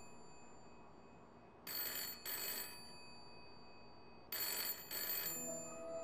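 Antique candlestick telephone ringing with a bell in double rings: two short rings, a pause of about two seconds, then two more. Soft background music comes in near the end.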